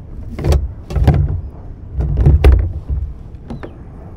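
Irregular thumps and knocks on a plastic kayak as a freshly caught porgy (scup) is handled and unhooked from a high-low rig, with a few heavier thuds in quick pairs.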